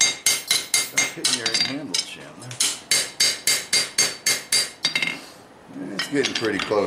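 Hand hammer striking a red-hot steel froe blade on an anvil. The blows come quick and ringing, about four to five a second, in two runs separated by a short break, and stop about five seconds in.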